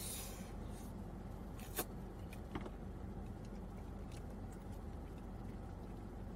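Quiet chewing with a few faint mouth clicks, over a steady low hum inside a car.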